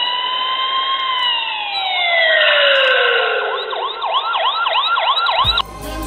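Police siren: a wail that rises, then slowly winds down, then switches after about four seconds to a fast yelp of about four sweeps a second. The siren cuts off near the end as music comes in.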